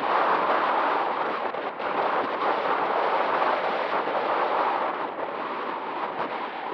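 Wind buffeting the microphone: a steady rushing noise that drops a little about five seconds in.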